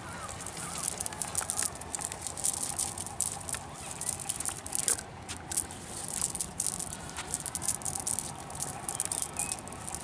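Cast net rustling and crackling as it is lifted and shaken out by hand over wet mud, in quick irregular crackles.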